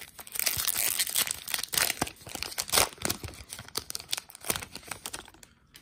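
Plastic wrapper of an Allen & Ginter trading-card pack being torn open and crinkled by hand: a dense run of crackling and tearing, loudest about three seconds in, then thinning to a few scattered crinkles.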